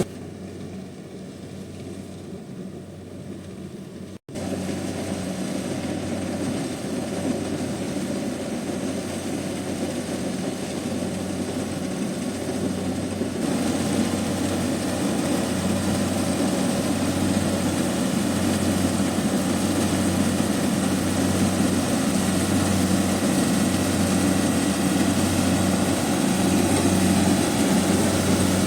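Kubota DC70 rice combine harvester running steadily, a loud engine drone with a low hum that beats about once a second. The sound breaks off suddenly about four seconds in and comes back louder.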